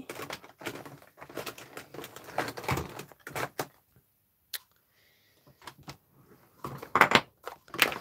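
Paper and card being handled and moved about on a craft mat: a run of light rustles and taps, a near-silent pause about four seconds in, then a few louder knocks and rustles near the end.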